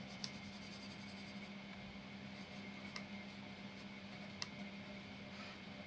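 Graphite pencil sketching on paper: faint scratching of quick strokes, with a few short ticks, over a low steady hum.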